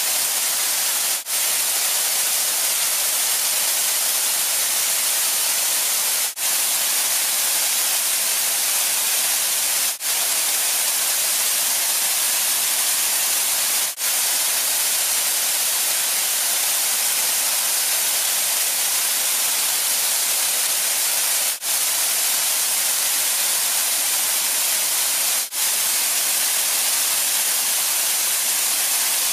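Steady rush of a mountain waterfall cascading over rock, a hiss heaviest in the high end, broken by six brief dropouts.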